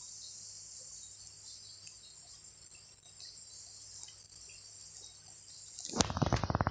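Steady high-pitched chirring of insects in the background. About six seconds in, a loud burst of rapid clicking or rattling breaks in.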